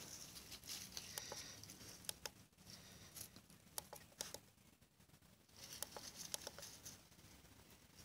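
Near silence between DAB stations: faint hiss comes and goes, with scattered sharp clicks as a Sangean DAB radio is stepped through its channels.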